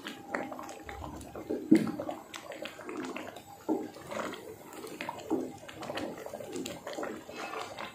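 A long-handled spoon stirring thick chickpea curry in a large metal pot: irregular wet squelching and slapping of the gravy, with light clicks of the spoon against the pot.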